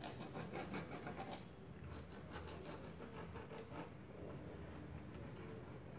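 Bottle-mounted basting brush with blue bristles rubbing quickly back and forth over a sandwich maker's plates, greasing them with ghee: soft, rapid scratchy strokes in two runs with a brief pause between, growing sparser and fainter after about four seconds.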